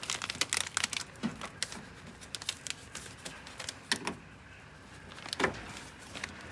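Plastic wiring trunking and its connectors being pulled loose and handled: a run of small clicks and rattles, then a louder knock about five and a half seconds in.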